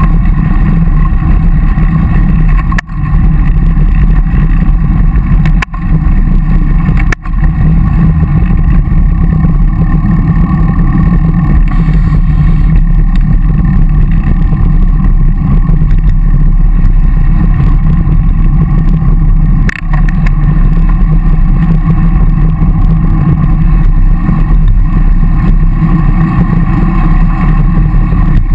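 Steady, loud wind rumble and buffeting on the microphone of an action camera mounted on a moving road bike, with a few brief drops in level, the first about three seconds in.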